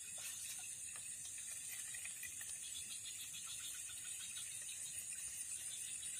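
Steady high-pitched chorus of insects, with a fainter rapid pulsing trill beneath it and a few faint ticks.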